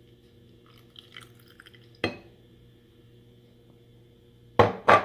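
Kitchen utensils clinking and knocking against dishes as melted butter is spooned into the mug: light clinks, one sharp knock, then two loud knocks close together near the end.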